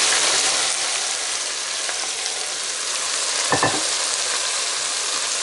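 Freshly sliced onions frying in hot oil in a pot, a loud, steady sizzle that eases a little as they settle. This is the onion stage of the zirvak for plov.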